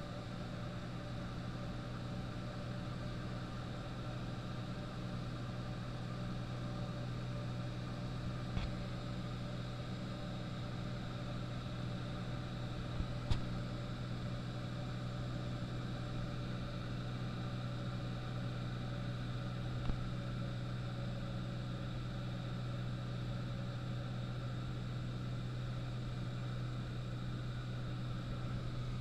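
Cabin sound of a single-engine high-wing light aircraft in cruise: the piston engine and propeller drone steadily with airflow noise. A few brief sharp clicks partway through.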